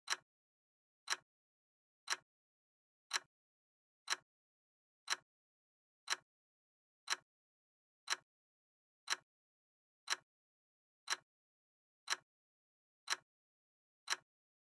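Clock-like ticking: a single short, sharp tick about once a second, evenly spaced, with dead silence between the ticks.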